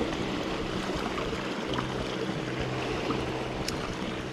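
Sea water washing and lapping against shoreline rocks, a steady wash of sound with a faint low hum underneath. A single sharp click comes about three-quarters of the way through.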